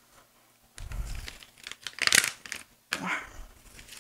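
A plastic sachet of ground paprika crinkling and rustling as it is opened, in three short bursts, the middle one loudest.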